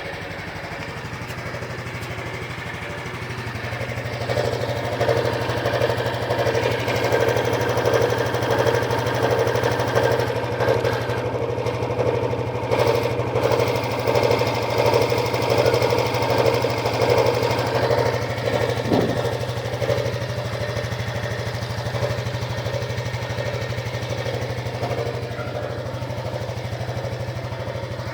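Honda Biz 125 EX's single-cylinder four-stroke engine idling, with an extra noise that swells and fades about once a second from a few seconds in until about two-thirds through. The owner hears this as an abnormal noise, as if something were catching, that comes and goes.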